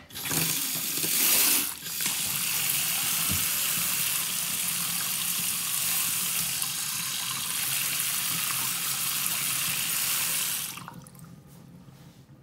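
Water running from an Oras single-lever basin mixer tap into a ceramic washbasin: a steady rush, briefly louder in the first two seconds, that stops when the tap is shut off near the end.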